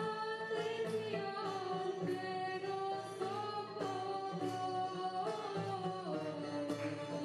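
Woman singing a Serbian folk song, held notes with vibrato, accompanied by a small fretted lute of the tamburica family picked along with a steady low rhythmic pulse beneath.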